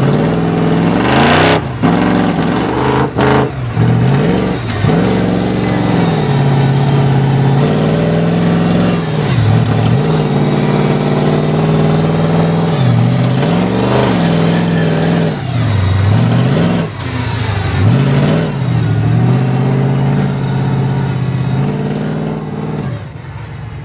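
A small vehicle's engine driving off in gear and running at a steady pitch, which dips and comes back up about eight times as the throttle is eased off and opened again. A couple of sharp knocks come in the first few seconds, and the engine fades away near the end.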